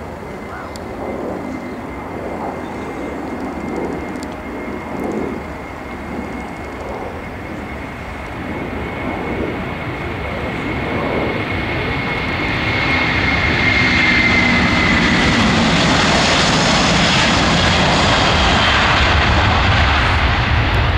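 Airbus A330-200's twin jet engines at takeoff thrust during the takeoff roll: a steady high whine over a rushing roar, growing much louder about halfway through into a loud, full roar that holds to the end.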